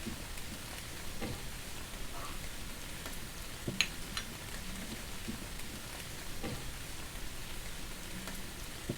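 Biryani cooking in a pot, a steady sizzling hiss with a couple of sharp clicks a little before the middle.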